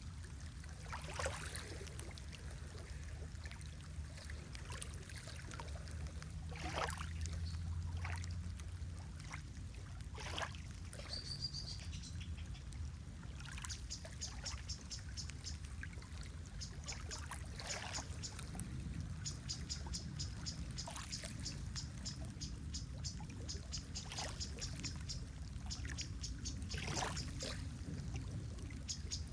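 Lake water lapping and splashing gently at the shore over a steady low rumble. A short high bird note comes a little before halfway, and fast series of high ticks run through the second half.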